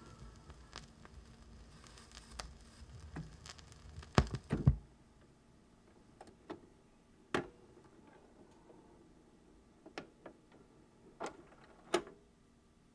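Record player after the 45 rpm single ends: faint surface noise of the stylus in the run-out groove, then two loud knocks about four seconds in, after which the hiss drops away. Scattered single clicks and knocks follow as the tonearm lifts and swings back to its rest.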